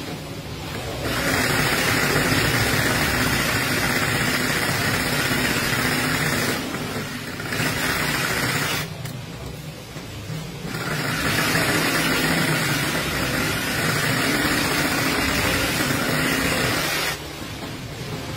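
Industrial sewing machine running in stretches as it stitches the edge of a bamboo mat. It stops and starts several times, with short pauses while the mat is repositioned.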